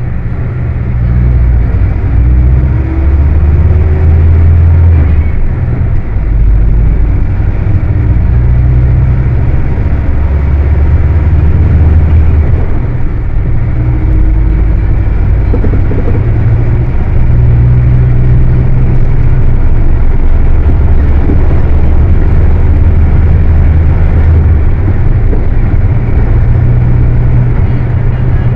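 Volkswagen 17-230 OD Euro V bus's diesel engine running loud and hard, held at high revs. Its low note shifts up and down in steps every few seconds.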